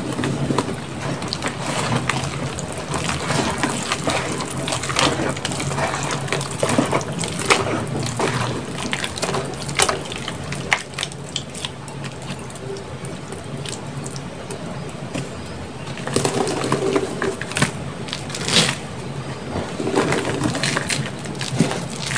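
Hands crumbling and squishing wet gray reforms of gym chalk, cornstarch and charcoal powder in a plastic tub of water: continuous wet, crackly squelching with many sharp crunches, a little softer for a few seconds in the middle.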